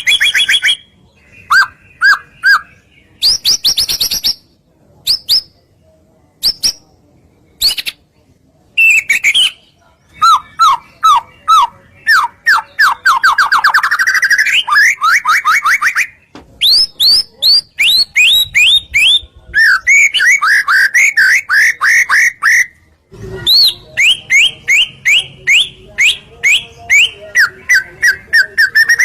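White-rumped shama (murai batu) singing loudly: varied phrases of rapid repeated whistled notes and fast trills, broken by short pauses.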